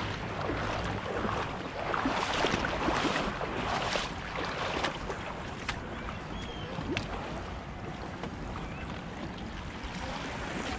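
Shallow seawater splashing in several short washes during the first five seconds or so, then calmer, over steady wind rumble on the microphone.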